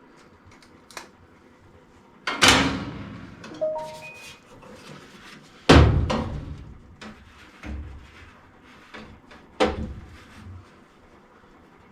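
Sheet-metal clanks and knocks from a gas furnace's burner box being worked loose: three loud bangs a few seconds apart with lighter knocks between.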